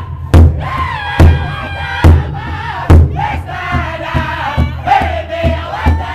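Powwow drum group singing: high-pitched voices in unison over a large hide powwow drum struck together by several drummers with sticks. Heavy strokes come a little under a second apart, then softer, quicker strokes from about halfway.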